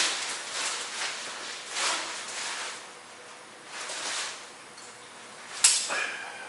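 Tent rain fly fabric rustling in several soft swishes as it is handled, with one sharp click near the end.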